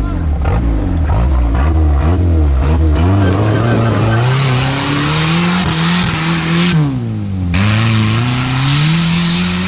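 Off-road car engine revving hard. In the first three seconds it goes up and down in quick blips, then it climbs steadily under load, drops off sharply about seven seconds in, and rises again near the end.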